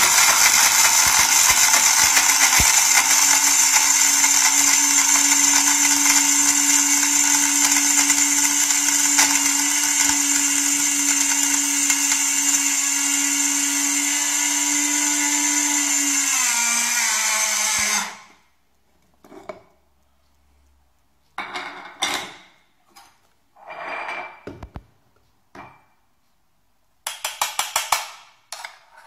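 ANMER CG 8120 electric coffee grinder running, its motor and the grinding making a loud, steady whir that drops a little in pitch just before it switches off about 18 seconds in. After it stops come a few short knocks and rattles.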